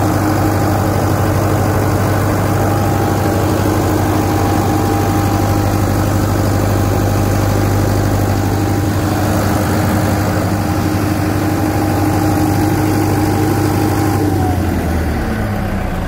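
Water-cooled Deutz diesel engine of a 1999 Kohler 80ROZS 80 kVA standby generator running steadily at its governed 1500 rpm. Near the end its pitch falls and it gets quieter as the engine slows down, as when it is shut off.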